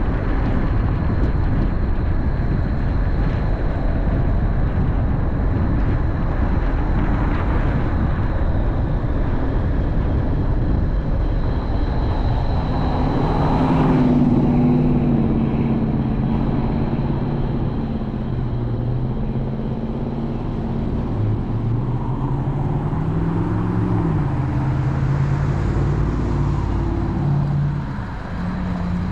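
Car on the road: steady tyre and road noise. Through the second half an engine hum rises and falls in pitch.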